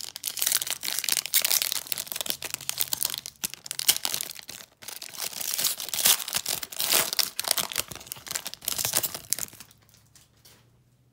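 Foil wrapper of a 2014 Panini Select football card pack crinkling and tearing as it is ripped open by hand, dying down near the end.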